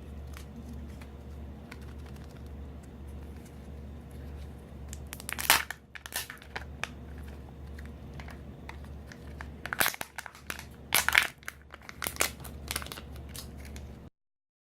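Plastic packaging being crinkled and torn open by hand, in loud crackling bursts about five seconds in and again several times near the end, over a steady low hum.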